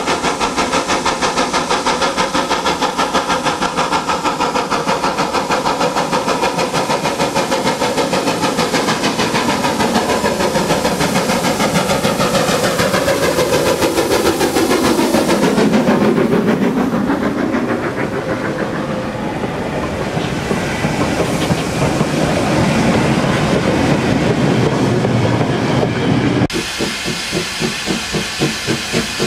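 GWR Manor-class 4-6-0 steam locomotive 7822 working hard as it approaches and passes close by, with rapid, even exhaust beats that dull and drop in pitch as it goes past. Near the end comes an abrupt change to an LMS Class 5 4-6-0 giving slow, heavy chuffs with a loud hiss of steam from around its cylinders.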